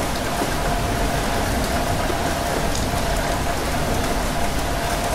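Steady rain with scattered sharper drop ticks, over a low rumble and a steady mid-pitched hum.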